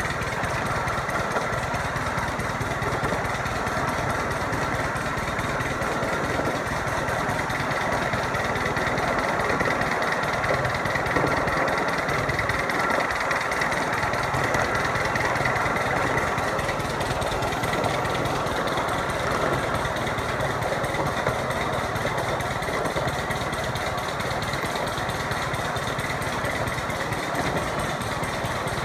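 Ride-on miniature railway train running along its track: a steady mechanical rattle and drone, with a thin high whine held throughout.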